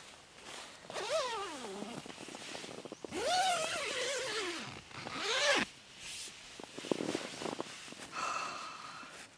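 A woman's wavering 'ooh' groans against the cold, three of them, the longest about three seconds in, over rustling of nylon sleeping-bag and tent fabric as she moves.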